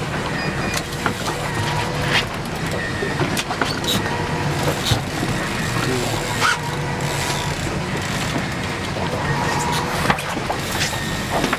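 A boat engine running steadily under wind and water noise, with scattered clicks and knocks and short squeaks. The squeaks come from a downrigger rod rocking in its rod holder and rubbing on the rubber cap.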